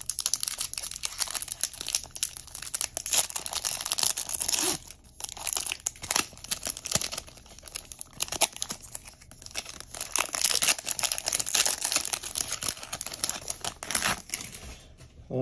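Wrapper of a 2024 Bowman Baseball card pack being torn open and crinkled, with cards handled, a dense run of crackles and sharp clicks. There are brief lulls about five seconds in and near the end.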